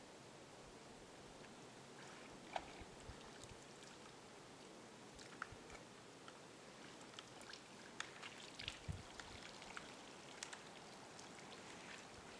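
Faint, scattered clicks, cracks and scratches from a black bear working at the trunk of a bait tree, heard over a quiet hiss; one sharp crack about two and a half seconds in and a cluster of them in the second half.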